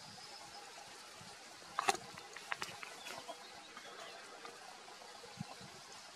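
Faint outdoor ambience with distant bird calls, and a short cluster of sharp clicks about two seconds in.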